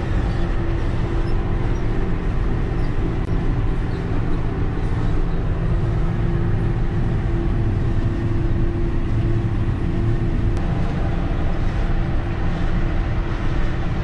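JCB Fastrac 1125 tractor engine running steadily under load, heard from inside the cab, as it tows a wide set of harrows across dry ground. A constant low drone carries a steady hum above it.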